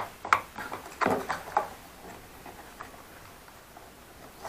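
Utility knife blade clicking and scraping against the plastic base of a shark-fin antenna while prying off plastic and adhesive: a string of small clicks and short scrapes over the first two seconds, one more click a little later, then only faint sounds.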